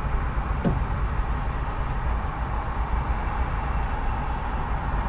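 Fairly heavy urban road traffic: a steady wash of tyre noise and low engine rumble from passing cars. A short click with a quick falling tone comes a little over half a second in, and a faint high steady whine sounds for about a second and a half in the middle.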